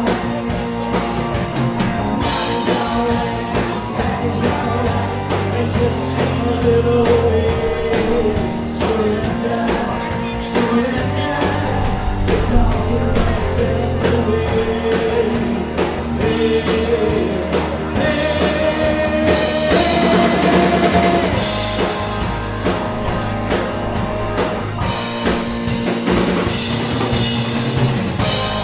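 Live rock band playing a song: electric guitar, bass guitar and drum kit, with a man singing lead into a microphone.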